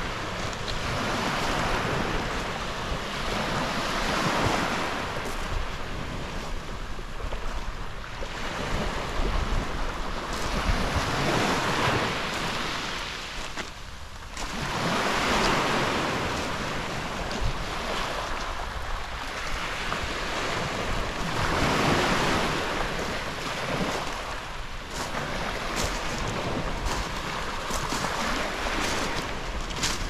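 Small sea waves washing up onto a pebble beach, the surge swelling and falling back every few seconds, with wind rumbling on the microphone.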